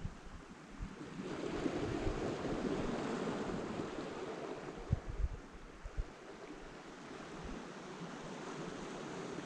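Small waves washing onto a shingle beach of rounded pebbles, one surge swelling about a second in and easing off about four seconds later, with a few low wind buffets on the microphone around the middle.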